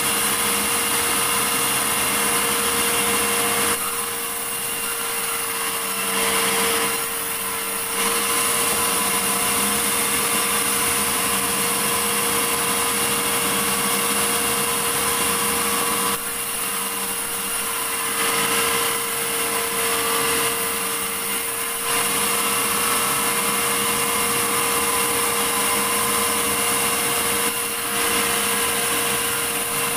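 Sawmill saw running and cutting through a large medang log, a steady machine drone with a high hiss; the cutting noise eases off briefly a few times, around 4, 16, 20 and 28 seconds in.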